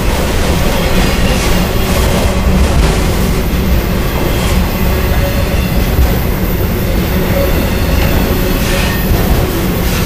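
Autorack freight cars rolling past close by: a steady, loud rumble of steel wheels on rail, with a few sharper clacks as the wheels cross the rail joints.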